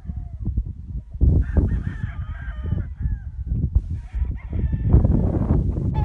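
Chickens calling, several pitched calls one after another, over a heavy low rumbling noise.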